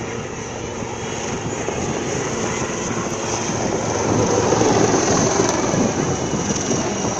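Navy helicopters flying low overhead: a steady rotor and engine noise that swells to its loudest a little past the middle as they pass, then eases slightly.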